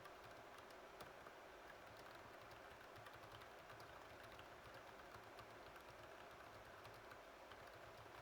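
Fast, continuous typing on a computer keyboard, heard faintly: a rapid, uneven patter of keystrokes over a steady hiss.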